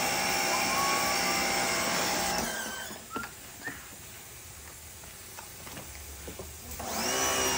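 Electric pressure washer motor running with a steady whine, cutting off abruptly about two and a half seconds in; a few light knocks follow, and the motor starts up again near the end.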